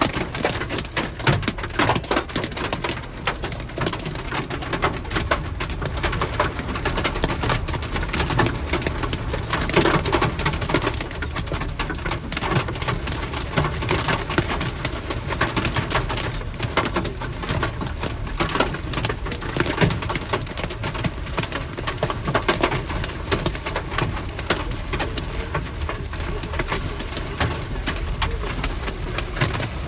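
Hail coming down, a dense, continuous clatter of hailstones hitting hard surfaces, many separate strikes overlapping without a break.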